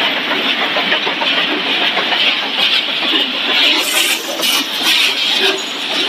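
Steady, dense machine noise of a running corn flake and cereal production line, its conveyors and rotating drum, with a few sharper clanks about four to five seconds in.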